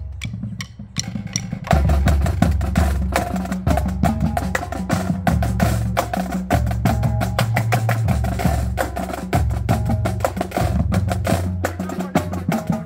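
Marching drumline playing together: rapid, sharp snare drum strokes over low, pitched bass drum notes. Scattered hits open it, and the full line comes in about two seconds in.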